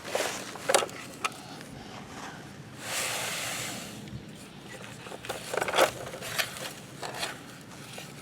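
Plastic toy construction trucks scraping through dirt in a handful of short strokes, with a hiss of about a second near the middle like dirt sliding out.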